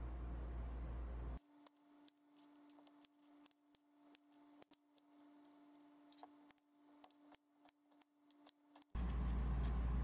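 Small kitchen knife paring the corners off raw potato chunks held in the hand: a quick, irregular run of short, sharp snicks. A steady low rumble runs at the start and returns near the end.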